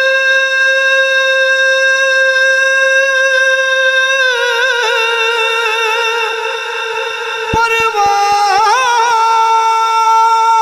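A man singing a manqabat for Imam Hussain, unaccompanied: one long high note held level for about four seconds, then wavering ornamented turns that step down in pitch.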